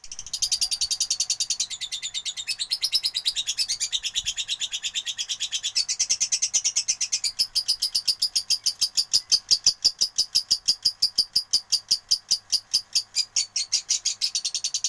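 Lovebird giving a long unbroken chattering song (the 'ngekek' of a contest fighter bird): rapid, high-pitched chirps at several notes a second that run on without a pause, shifting pattern about halfway through.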